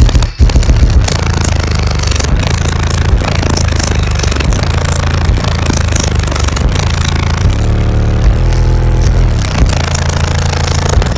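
Loud bass music played through a car-audio system of four Crossfire XSV2 18-inch subwoofers on two Soundigital 12k amplifiers, heard inside the truck cab. The roof and cab panels rattle and buzz along with the bass.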